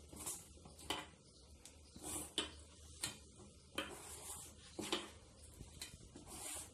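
Hands kneading maida dough in a stainless steel bowl: irregular pressing and scraping strokes with small knocks against the bowl, about once or twice a second. The dough is being worked to a firm, puri-dough consistency.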